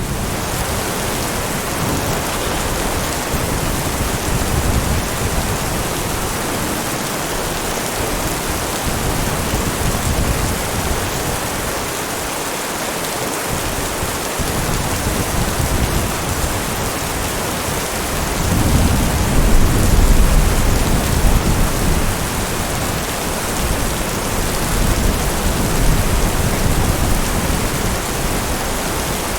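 Heavy rain falling steadily, with thunder rumbling low underneath; the rumble swells loudest about two-thirds of the way through.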